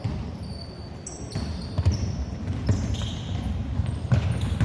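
Basketball bouncing on a court during play: irregular thuds, the loudest about two seconds in and again near the end, with short high squeaks over them.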